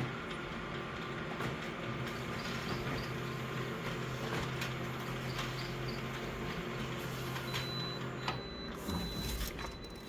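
Photocopier running a copy: a steady motor hum with scattered clicks and clatter that stops about eight seconds in. Near the end comes a run of short, high beeps.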